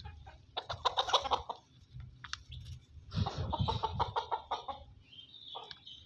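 Poultry clucking in two bursts of rapid, harsh notes, the first about half a second in and the second around three seconds in, with a short higher call near the end.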